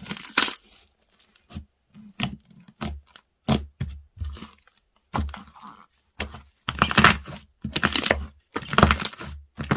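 Foam-ball slime being squeezed and pressed by hand, giving crunchy crackling and popping bursts. They are sparse at first, then come in longer, louder bursts from about two-thirds of the way through.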